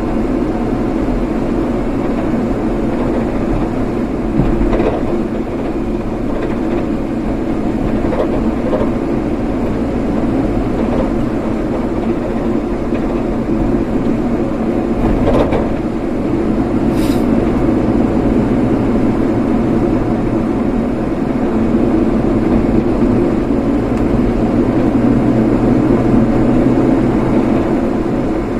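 A car driving, with steady road and engine noise that holds level throughout, a few faint clicks, and a brief high-pitched tone about two-thirds of the way through.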